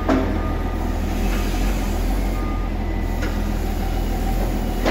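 Caterpillar 924H wheel loader's diesel engine running steadily under load as the machine drives a log grapple up to a cart of logs, with a few sharp knocks spread through it.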